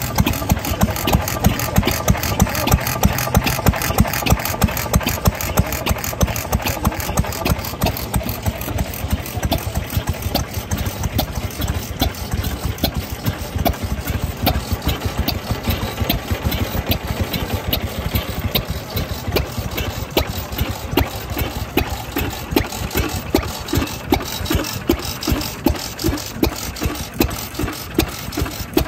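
Vintage Japanese single-cylinder farm stationary engine running at idle, giving an even train of sharp exhaust beats. The beats are loudest in the first several seconds, then come closer together and a little fainter.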